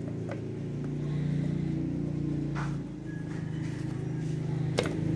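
A motor running steadily at an even pitch, with a few faint ticks and one sharper click near the end.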